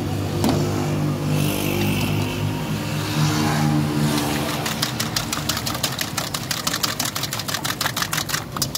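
Raw eggs being beaten in a steel bowl with a metal spoon: fast, even clinking of spoon on bowl, about six strokes a second, starting about halfway through. Before that, an engine runs with a steady hum.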